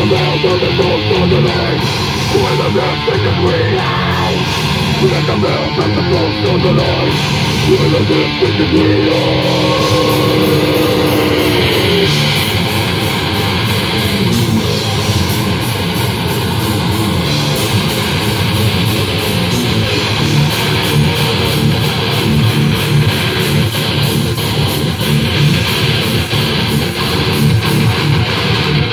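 Heavy metal band playing live: distorted electric guitars, bass and drums in a loud, dense wall of sound. A held note rings out about nine seconds in and fades about three seconds later.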